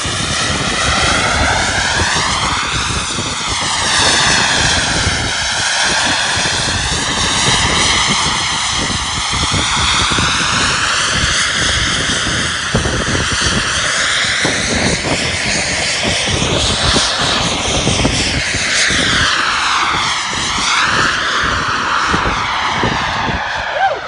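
Turbine of a CARF-Models J-10 radio-controlled model jet whining in flight. Its pitch swoops down and up several times as the jet passes to and fro, over a steady rush of air noise.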